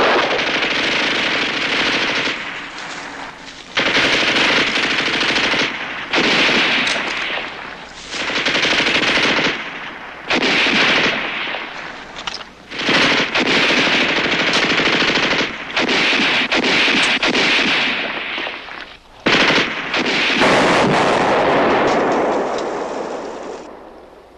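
Heavy battle gunfire: rifles firing in long, dense volleys with short breaks between, dying away near the end.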